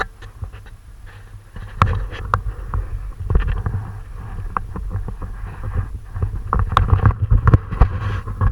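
Wind buffeting the microphone as a low rumble, with many scattered knocks and clicks that grow busier over the last few seconds.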